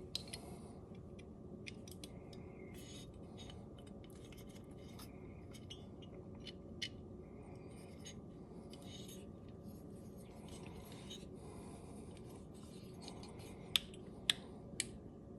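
Small metal trigger-group parts clicking and scraping in an AR-15 lower receiver as they are worked into line for the pin, with a few sharp clicks near the end, over a low steady hum.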